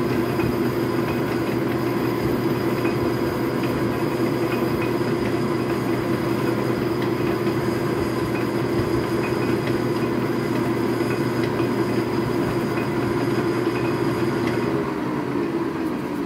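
Logan metal lathe running steadily under power while a drill in the tailstock is hand-fed into the spinning workpiece. Near the end the lathe is switched off and its pitch falls as it spins down.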